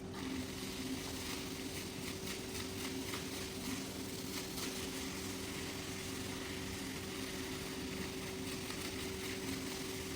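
A cleaning machine's motor running steadily, a constant hum under an even hiss of spraying water.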